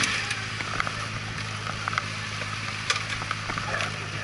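Honda CBR1000RR Fireblade's inline-four engine idling steadily with the bike stopped, with scattered light clicks and taps over it.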